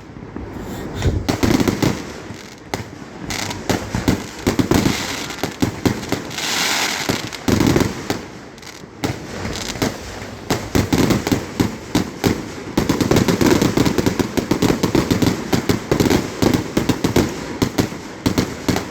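Fireworks display: a rapid barrage of aerial shell bursts and crackling reports, getting denser and louder from about ten seconds in, with a brief hiss about six seconds in.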